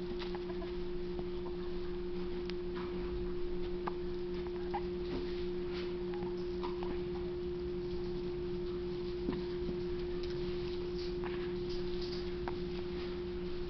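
A person hiccupping: a few short, sudden hiccups several seconds apart, the clearest two about three and nine seconds in, over a steady low electrical hum.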